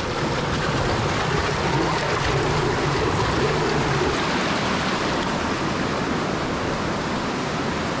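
Fast shallow creek water rushing and churning over rock close to the microphone, a steady, even rush with no pauses.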